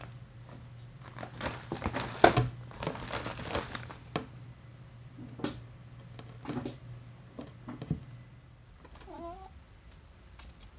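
Hands working with a glass vase of potting soil on a plastic-covered table: irregular knocks of glass on the tabletop, with rustling and crinkling of plastic sheeting, loudest about two seconds in. A short wavering call comes near the end.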